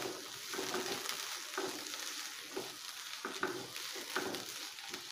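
Onions and spice powders sizzling in hot oil in a non-stick frying pan while a wooden spatula stirs them, scraping across the pan about twice a second over a steady frying hiss.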